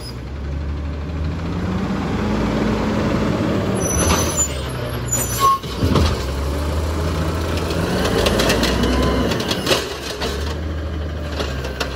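LNG-fuelled automated side-loader garbage truck running, its engine pitch rising as it pulls forward, with a sharp air-brake release about five and a half seconds in as it stops, then the engine working as the side arm reaches for and lifts a yard-waste cart.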